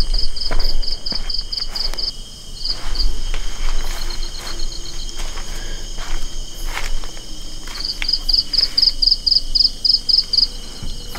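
Insects chirping in rapid, evenly spaced high-pitched pulses, about five a second, in two long runs with a pause between, over a steady high insect drone. A few scattered footsteps.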